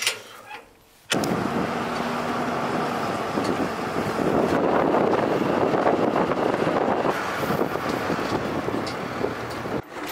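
Truck driving on the road: steady engine and road noise that starts abruptly about a second in and cuts off just before the end.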